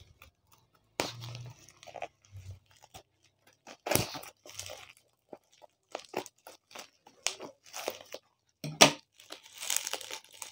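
Small scissors cutting into a parcel's bubble-wrap and tape wrapping, with scattered snips, crackles and plastic crinkling. There are a few sharper snaps, about one, four and nine seconds in, and denser crinkling near the end as the wrap is pulled open.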